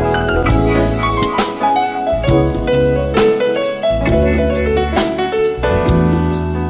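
Instrumental break of a jazz-pop song: piano carrying the melody over bass and drum kit, with no vocals.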